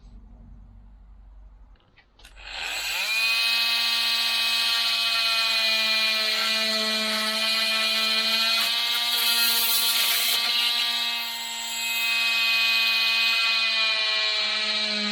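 Makita TM30D 10.8 V cordless oscillating multi-tool switched on about two and a half seconds in, quickly rising to a steady high-pitched buzz. It runs at an even pitch with a rasping haze from the blade, easing off briefly near the end.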